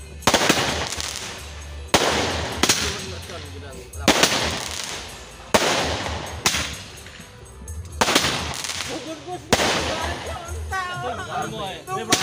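Fireworks going off overhead: a string of sharp bangs, irregularly one to two seconds apart, each trailing off in a short echo.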